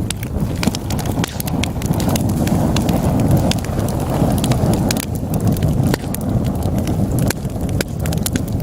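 Wood fire in a fireplace burning with a steady low rumble, and logs crackling and popping in many sharp, irregular snaps.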